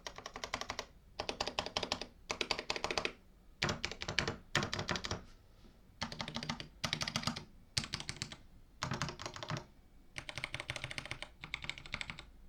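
ErgoDox 76 Hot Dox V2 split mechanical keyboard being typed on in about a dozen quick bursts of key clicks with short pauses between: a typing sound test, its larger keys fitted with stabilizers.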